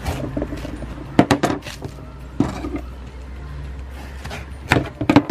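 Kitchen knife cutting through a watermelon and knocking against the tiled counter beneath it: a few sharp taps and clicks, some in quick clusters, over a low steady hum.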